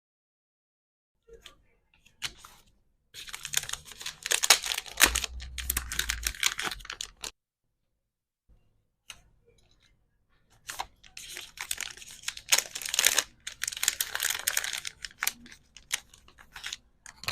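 Plastic packaging crinkling and rustling, mixed with quick clicks of small plastic items, in two bursts about four and six seconds long with a silent pause between.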